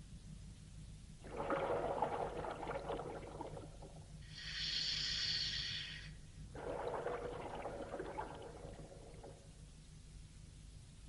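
Scuba diver breathing through an open-circuit regulator underwater: a gurgle of exhaled bubbles, then a short hiss of inhalation, then bubbles again, over a steady low hum.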